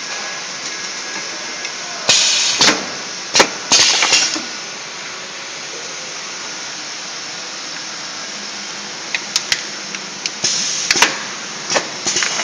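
Automatic cup filling and sealing machine running, with a steady background hiss. Loud hissing bursts come about two and four seconds in and again near the end, with sharp clacks scattered among them.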